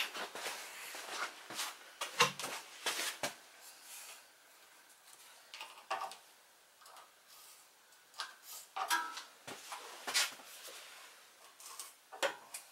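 Irregular short scrapes, taps and knocks of hand work as a marker is drawn around the base of an engine on a snowblower's metal deck, with a brief squeak or two between them.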